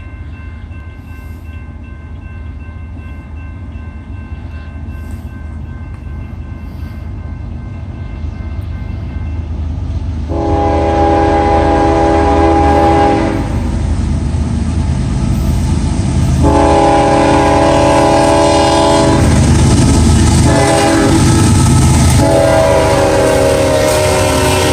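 Approaching CSX freight train: the diesel locomotive and wheels rumble louder and louder, then the air horn sounds the grade-crossing signal, two long blasts, a short one and a final long one, as the locomotive reaches the crossing. The rumble and clatter of the passing autorack cars continues under the last blast.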